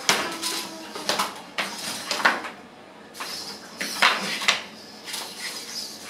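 Small metal-framed humanoid wrestling robots crashing down onto the ring mat together, then clanking and knocking as their aluminium limbs hit and scrape while they scramble on the mat. A sharp clatter at the fall, followed by several more irregular knocks, the loudest about four seconds in.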